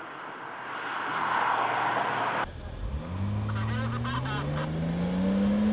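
Car on a race circuit. Tyre and road noise swells as it corners. Then, after a cut, an engine accelerates steadily, its pitch rising, with short tyre squeals over it.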